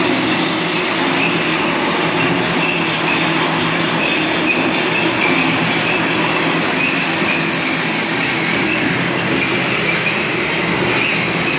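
Machinery of a puffed-snack processing line running, a steady loud mechanical din with recurring high-pitched squeaks.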